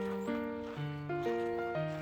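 Background music: an instrumental tune of held notes and chords that change about twice a second.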